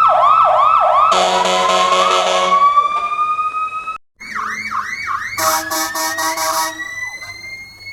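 Cartoon fire-truck siren sound effect played twice, split by a short break about four seconds in. Each take has a fast warbling yelp, then a blaring horn-like blast, then a slowly rising wail. The second take is higher-pitched, with a pulsing blast that trails off near the end.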